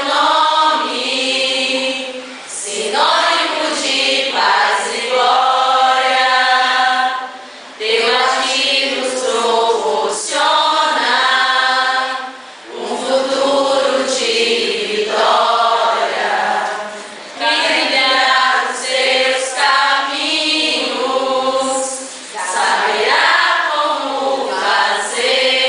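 A large group choir of mostly female voices singing together, in phrases of a few seconds broken by short pauses for breath.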